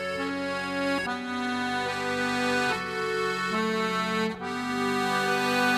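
Instrumental background music: a melody of held notes over sustained chords, changing about once a second.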